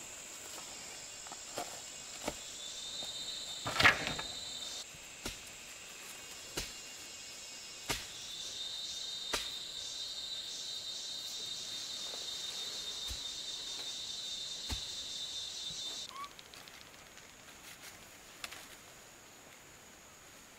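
Forest insects making a steady high buzz; one of the trills starts about three seconds in, and again from about eight seconds, then cuts off suddenly near sixteen seconds. Scattered light clicks and knocks, with one sharper knock about four seconds in.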